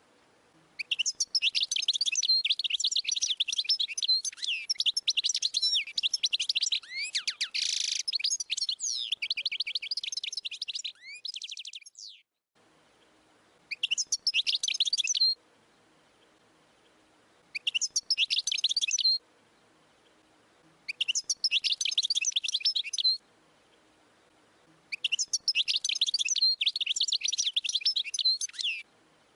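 A wild European goldfinch singing its rapid, high twittering song. It opens with one long phrase of about eleven seconds, then gives four shorter phrases of one to four seconds each, with pauses of a couple of seconds between them.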